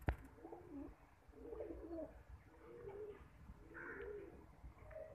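Domestic pigeons cooing: several low, rolling coos one after another, about a second apart. A sharp click right at the start is the loudest sound.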